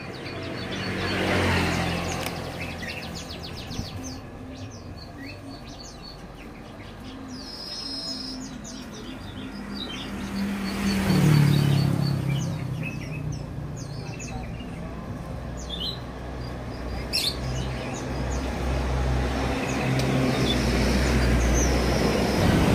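Many small caged birds chirping in short, high calls, scattered throughout, over a steady low hum. Vehicles pass twice, swelling and fading about a second in and again about eleven seconds in, the second with a low drone that drops in pitch.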